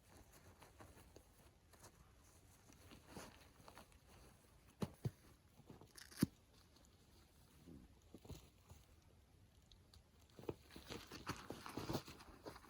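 Faint, scattered handling noises: a few sharp knocks about five and six seconds in, then a run of crunching rustles near the end, like gear being handled and steps in snow.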